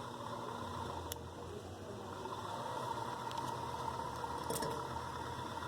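Hampton Bay Huntington III ceiling fan motor, running without blades: a steady low hum with a faint steady whine above it, and one brief click about a second in.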